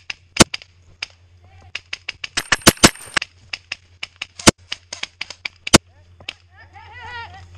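Airsoft rifle firing single sharp shots, with a quick cluster of shots a couple of seconds in. A distant voice calls out near the end.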